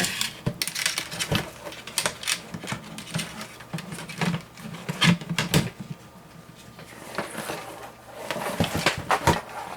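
Irregular clicks, taps and light knocks of plastic and metal PC case parts and fan cables being handled and fitted, with a stretch of quieter handling about two-thirds of the way through.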